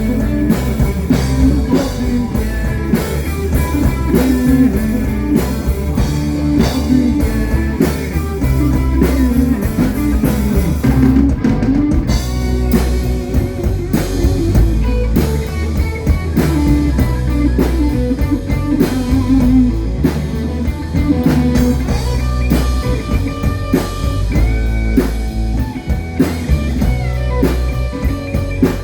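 Rock band playing an instrumental passage live: electric guitar over a drum kit and bass, with no singing.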